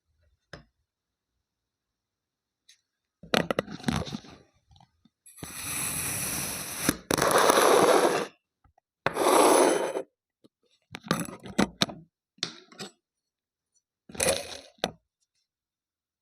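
Kinetic sand being cut and scraped, in about six separate stretches with silence between, the longest lasting about three seconds near the middle.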